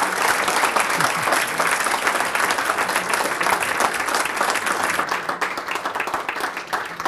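Audience applauding: a roomful of people clapping, thinning out over the last couple of seconds.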